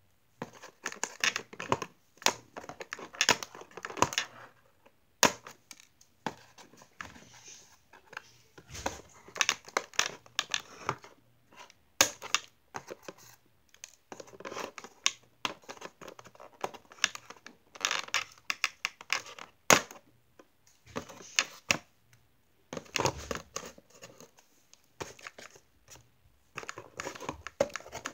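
Doll box packaging being opened by hand: cardboard and plastic tearing and crinkling in repeated irregular bursts, with sharp crackles and clicks between short pauses.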